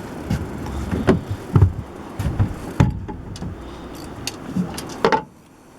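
Irregular knocks and clunks of fishing gear being moved about in a boat, over a steady rushing background. The sound drops away suddenly near the end.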